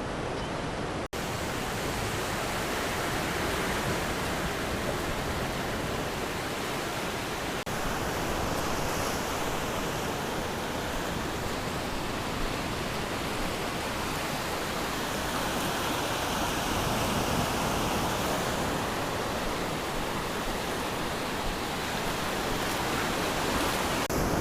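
Steady rush and hiss of surf washing around the wader, an even wash of noise with no single wave crash standing out. There is a brief dropout about a second in.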